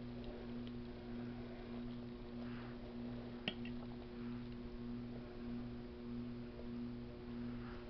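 Fork clinking once against a plate about three and a half seconds in, with faint soft eating sounds over a steady low electrical hum.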